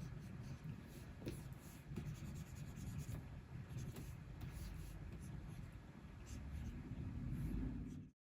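Stylus nib scratching and tapping on the screen of a Wacom Cintiq 24 Pro pen display in quick drawing strokes, with a low rumble beneath. The sound cuts off suddenly near the end.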